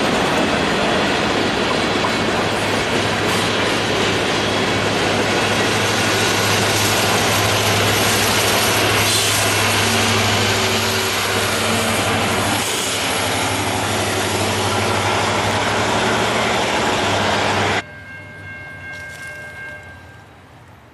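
Freight train passing close by, its cars' wheels clattering over the rails; about halfway through, the rear distributed-power locomotive, an EMD SD70IAC, goes by with its diesel engine running low and steady. The sound cuts off suddenly near the end to a much quieter outdoor scene.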